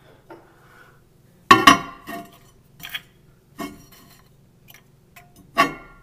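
Large glass jar clinking and knocking against the glass turntable plate inside a microwave as it is set down and shifted. There are several separate clinks, the loudest a close pair about one and a half seconds in and another near the end.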